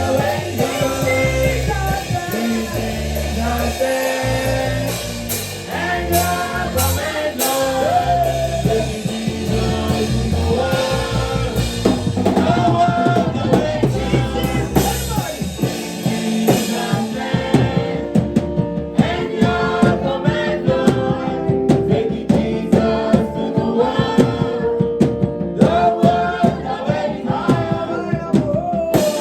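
Gospel worship music: voices singing over a band with a drum kit. The deep bass drops out about halfway through, leaving the singing and a busier rhythm.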